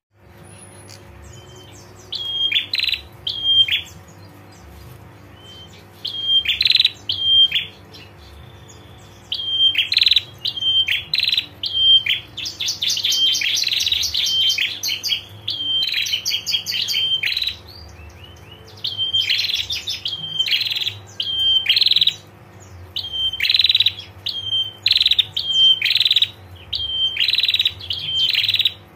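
Female prenjak (prinia) calling in short, sharp, high-pitched chirping bouts, breaking into a long rapid ticking trill (the 'ngetir' call) about halfway through. A faint steady low hum runs underneath.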